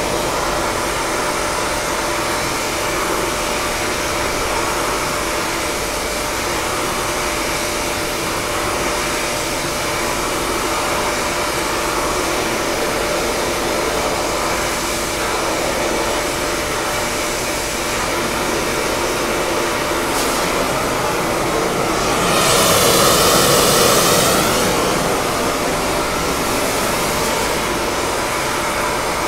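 Gas welding torch flame hissing steadily while silver-brazing a crack in a bell, swelling louder for about two seconds roughly three-quarters of the way through.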